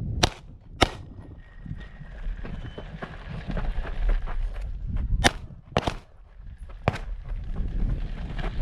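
Handgun shots fired during a timed IPSC stage: two quick shots right at the start, then after a pause of about four seconds three more within about a second and a half. A low rumble runs between the shots.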